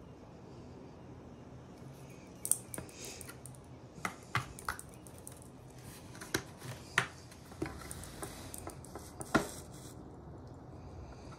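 Handling of a dive watch and its strap on a wooden table: a run of small sharp clicks and light knocks, irregular and a second or so apart, with the sharpest click near the end.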